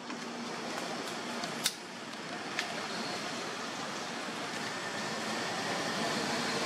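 Steady rushing background noise that slowly grows louder, with a sharp click about a second and a half in and a fainter one a second later.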